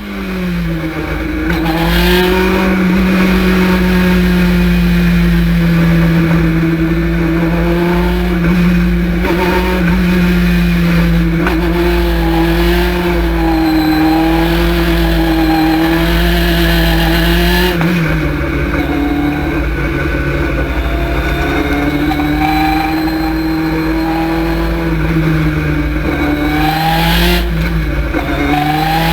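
Thunder Roadster race car's engine running hard and loud at a fairly steady pitch with a slight waver, over a deep rumble. The pitch drops briefly about two-thirds of the way through and changes again near the end, as with a lift or gear change.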